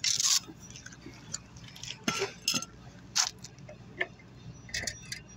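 Irregular metallic clinks and knocks as the parts of a small C-frame electric fan motor are handled and fitted back together, loudest at the very start.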